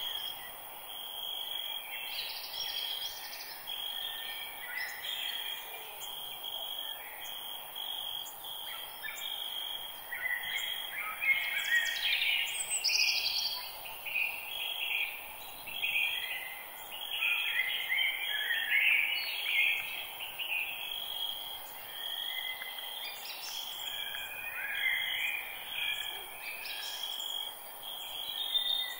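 Several birds calling and singing in a forest, with many short, quick calls overlapping. A steady high-pitched trill and a light hiss run beneath them.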